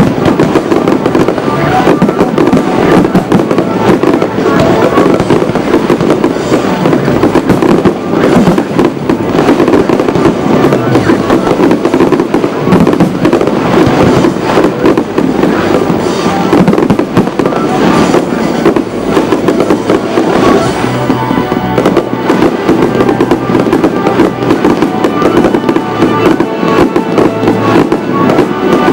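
Fireworks display: a dense, continuous barrage of shell bursts and crackling over loud music.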